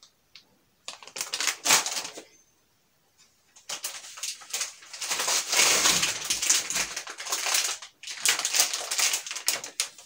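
Plastic meat packaging bags crinkling and rustling as they are handled, in three stretches with short pauses between them.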